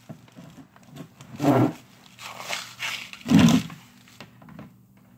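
A live blue crab being cleaned by hand: two short, rough noises about a second and a half and three and a half seconds in, with softer handling noises between, over a low steady hum.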